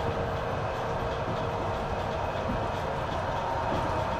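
Long-distance passenger train running: a steady rumble with a faint hum and no distinct wheel clicks.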